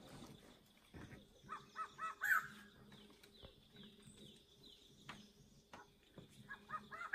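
Birds calling: a quick run of about five harsh notes about a second and a half in, and another run near the end, with faint short falling chirps in between.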